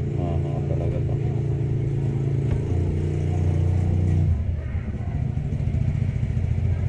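An engine running steadily; its note drops about two and a half seconds in and fades out after about four seconds, leaving a low rumble.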